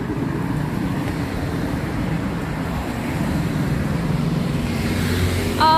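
Road traffic on a busy city street: a steady rumble of car engines and tyres, swelling a little as a vehicle passes closer near the end.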